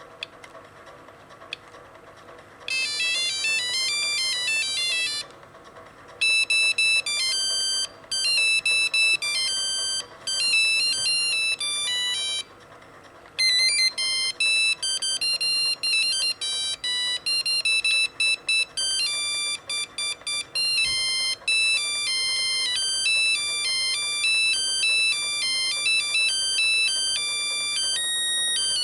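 Ericsson A1018s mobile phone playing its built-in monophonic ringtones through its small speaker: tunes made of rapid, buzzy high beeps. A few sharp clicks come first, then the first tune starts about three seconds in. It is followed by other tunes after short gaps, around five and twelve seconds in.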